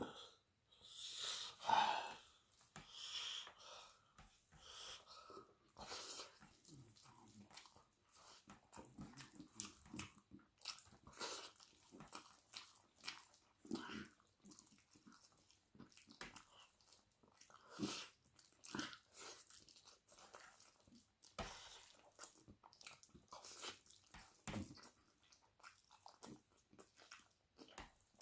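Close-miked eating of a chicken wing curry and rice meal: irregular chewing, biting and wet mouth clicks, loudest about two seconds in.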